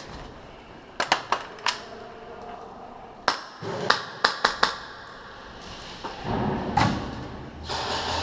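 Airsoft guns firing in sharp single snaps: four shots in quick succession about a second in, then five more between about three and five seconds.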